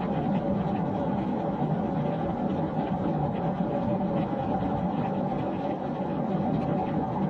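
Steady rain falling on a wooden deck, an even dense patter with scattered single drops ticking through it.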